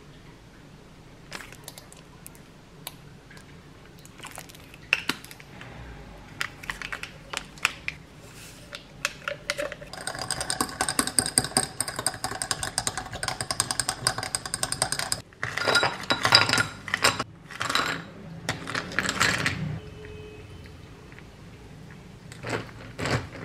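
A small metal whisk beating a drink in a tall glass: a fast, dense run of clinks against the glass for about five seconds midway. It is preceded by scattered taps and clicks of containers being handled, and followed by a few louder splashy bursts as liquid goes into the glass.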